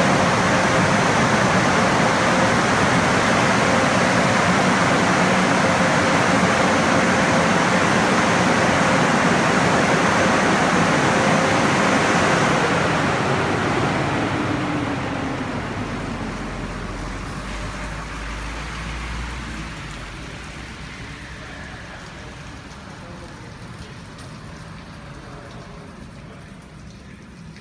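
Automated touchless truck wash bay equipment running, a loud, steady rushing noise with a faint steady hum, which fades away gradually over the second half. A pickup truck's engine gives a brief low rumble around the middle as it drives by.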